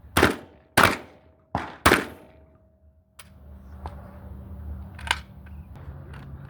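Four quick shots from a Glock pistol in about two seconds, each with a short ringing tail. A sharp click follows about a second later, then a few fainter knocks over a low rumble.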